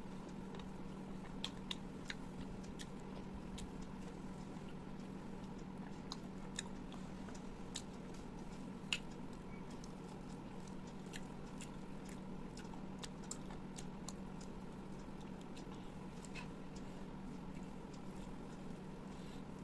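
A person chewing food close to the microphone, with scattered sharp wet mouth clicks, one louder about 9 s in, over a steady low hum.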